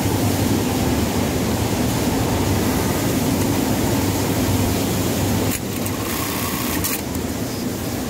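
Steady mechanical hum and hiss of sewing-workshop machinery running, dipping slightly in level about five and a half seconds in.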